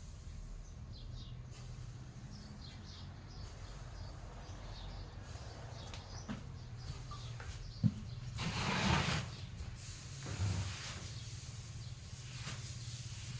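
Outdoor ambience with small birds chirping over a steady low hum. A sharp click comes about eight seconds in, followed by a short burst of rustling noise.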